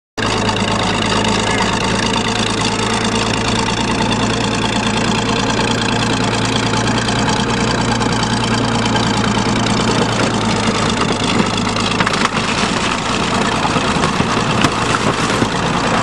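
An engine idling steadily. About twelve seconds in its low, steady hum drops away and irregular crackling noise takes over.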